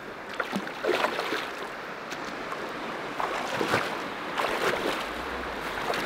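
Steps in waders sloshing and splashing through shallow river water at the bank, in several uneven bursts, over the steady rush of the flowing stream.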